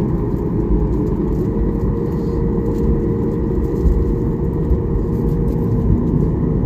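Steady low rumble of an engine heard from inside a vehicle, with a faint steady hum over it.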